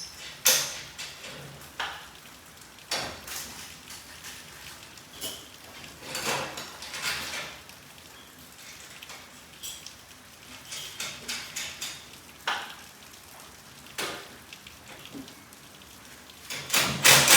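Irregular metal clinks, clicks and short scrapes of tools and garage door hardware being handled, the loudest cluster of scrapes near the end.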